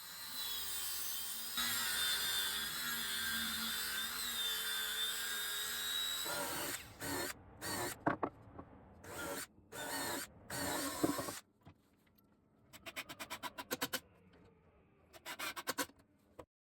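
Power tools working on wood: a tool runs steadily for about six seconds, then drill bursts start and stop several times. Near the end come two short runs of rapid clicking.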